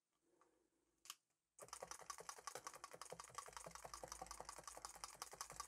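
Multi-needle felting tool stabbing lightly and quickly into loose wool fibres packed in a template, a fast, even run of small taps that starts about a second and a half in after a single tap.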